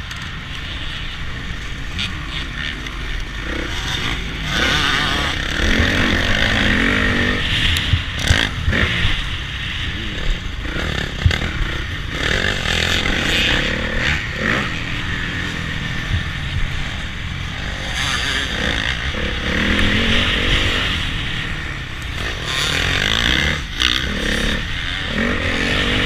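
Honda CRF450 motocross bike's single-cylinder four-stroke engine revving up and falling back again and again as it is ridden round a dirt track, with sharp knocks and clatter from the bike hitting bumps.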